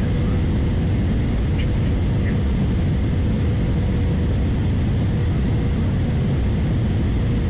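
Steady low roar of an Airbus A320-214's CFM56 engines and airflow heard inside the passenger cabin in flight, with a faint steady hum running under it.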